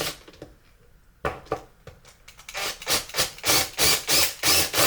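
A 15 mm bit scraping as it reams out the rod channel in a 3D-printed plastic sword segment. After a quiet start comes a single scrape about a second in, then rapid, regular rasping strokes, two to three a second, through the second half.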